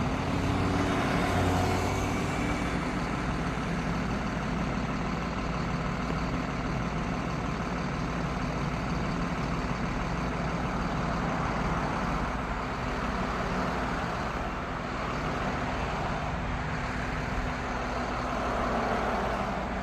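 A vehicle engine idling steadily with a low hum, over a bed of outdoor traffic noise.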